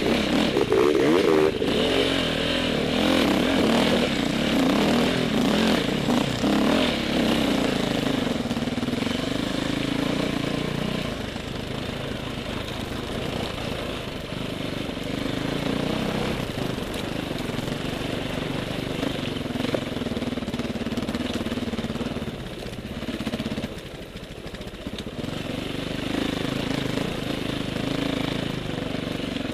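Off-road dirt bike engine under load on a rough trail climb, the revs rising and falling with the throttle. The engine eases off about a third of the way in and drops lower for a moment shortly before the end, then picks up again.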